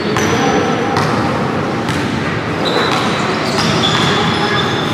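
Basketball bouncing on a hardwood gym floor as it is dribbled up the court, a few sharp bounces over a steady, echoing hall din, with high sneaker squeaks starting past the middle.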